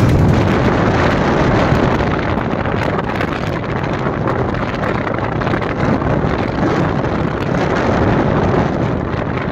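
Wind rushing over the microphone on a moving motorcycle, with the engine and road noise running steadily underneath.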